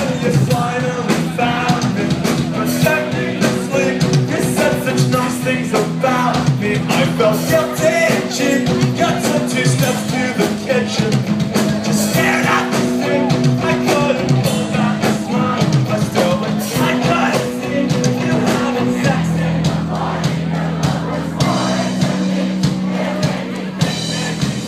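Live punk rock band playing a song: electric guitars, bass and drums, with a singing voice over them.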